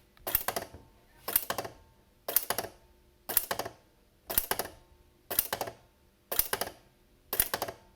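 1950s Italian electromechanical flip clock being stepped forward once a second, each step a short clatter of clicks as the number flaps fall over; eight steps in a steady rhythm.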